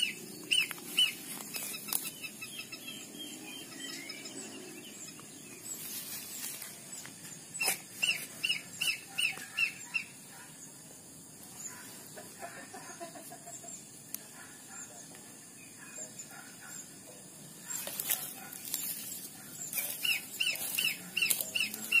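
Planduk semak (cingcoang) bird calls: a fast series of sharp high chirps, coming in bursts near the start, around the middle and near the end, with a few scattered knocks and rustles.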